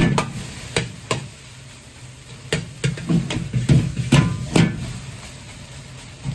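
Metal ladle clanking and scraping against a large wok as fried rice is tossed and stirred, with a steady low rumble from the gas wok burner underneath. There are a few clanks in the first second, then a run of quick clanks from about two and a half to four and a half seconds in.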